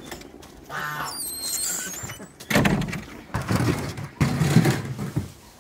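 A wooden shed door being opened, its hinge giving a thin high squeal that glides down in pitch, followed by several loud knocks and scuffs at the doorway.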